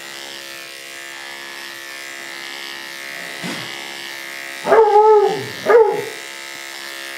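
Andis AGC2 two-speed dog clippers with a 7 blade humming steadily as they are pushed through a badly matted coat. About five seconds in, the Maltipoo lets out two yelps, the first longer and rising then falling, the second short.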